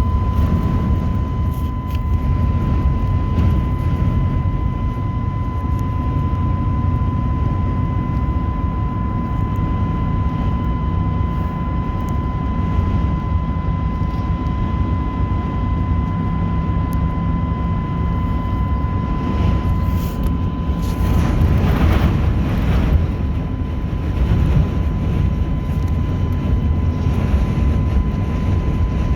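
Steady low rumble of vehicle and road noise in a severe windstorm, with a thin steady high tone running through it. A louder rushing swell comes about two-thirds of the way through.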